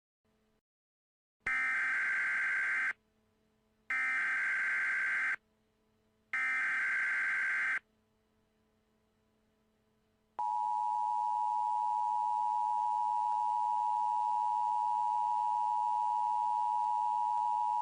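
Emergency Alert System alert tones: three bursts of SAME header data, each about a second and a half long with roughly a second between them, then, about ten seconds in, the steady two-tone EAS attention signal starts.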